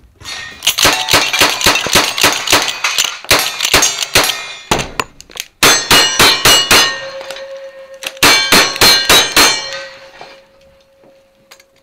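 A fast string of lever-action rifle shots, then two quick strings of single-action revolver shots, each shot followed by the ringing clang of steel targets being hit. The last shots come a little after two-thirds of the way in, and a faint ringing tone lingers after them.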